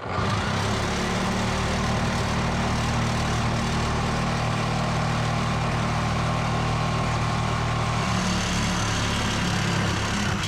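Harbor Freight power cutting tool running flat out as it cuts through a broken steel bolt; it starts abruptly and holds a steady pitch throughout, with a bright grinding hiss over a low motor hum.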